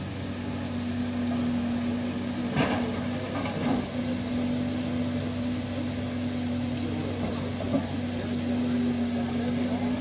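An engine running steadily at idle, giving an unchanging low hum. A couple of sharp knocks come about two and a half and three and a half seconds in.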